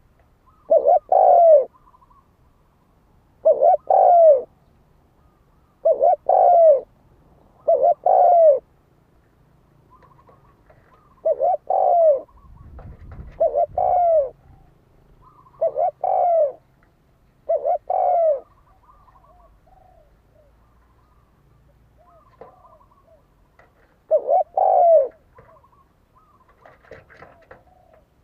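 Spotted dove cooing: short two-note coo phrases, repeated every two to four seconds, with a longer pause before a last phrase near the end. It is the male's song, used as a lure call to provoke rival doves.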